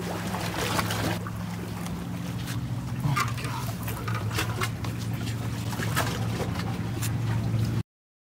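A steady low engine hum, with scattered knocks and scrapes as a fluke is brought up onto wooden dock planks. The sound cuts off abruptly just before the end.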